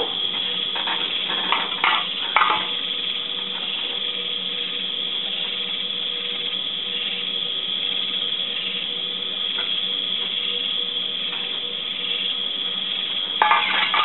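A few sharp metal clinks and knocks in the first couple of seconds and again near the end, from metal tools and a hot crucible pot being handled on a steel grate, over a steady high hiss.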